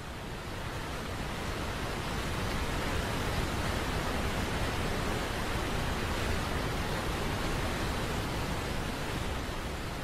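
Steady rushing roar of a waterfall, swelling in over the first couple of seconds and then holding even.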